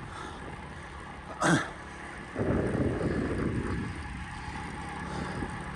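Riding noise of a road bike: a steady low rush of wind on the action camera's microphone and tyres rolling on asphalt, getting louder about two and a half seconds in. A brief louder sound breaks in about a second and a half in.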